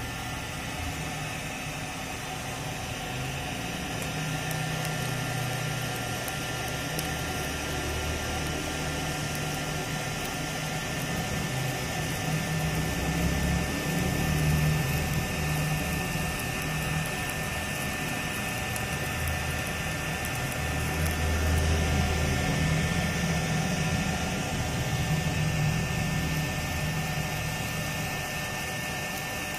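Electric heat gun running steadily, its fan blowing hot air with a thin whine, the nozzle held against whole fish to char them. A low rumble under it swells and fades several times.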